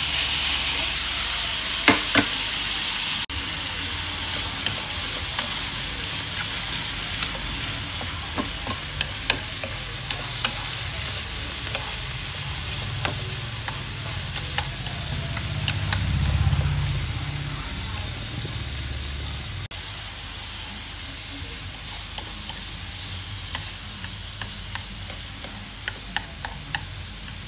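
Winter melon, chillies and spring onion sizzling as they go into a hot pan of frying pork, then stir-fried with wooden chopsticks that click and scrape against the pan. The sizzle is loudest at the start and gets quieter in two steps, about 3 s and 20 s in.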